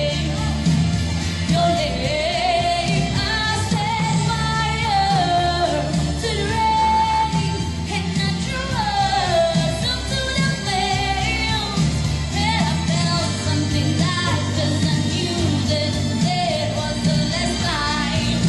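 A woman singing live into a handheld microphone, amplified through a PA. She holds and bends long notes over steady pop-style musical accompaniment.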